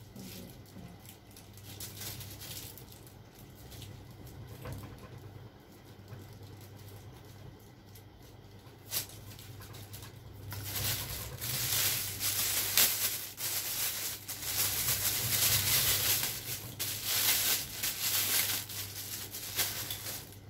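Handling of a microphone kit's plastic packaging: soft handling noises and a single click about nine seconds in, then from about halfway a dense, irregular crinkling and rustling of plastic bags that grows louder.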